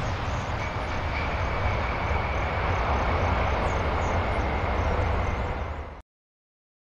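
Four-engined Boeing 747 jet airliner touching down and rolling out: steady jet engine noise with a deep rumble and a faint thin whine. It fades and cuts off suddenly about six seconds in.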